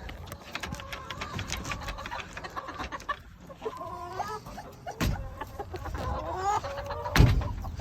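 Chickens clucking throughout, with two heavy thumps, one about five seconds in and a louder one near the end, as the stuck coop door is kicked loose.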